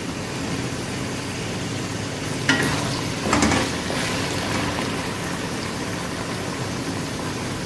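Chicken pieces frying in oil and garlic in a steel wok, a steady sizzle. A wooden spatula stirs and scrapes the pan, most clearly about two and a half and three and a half seconds in.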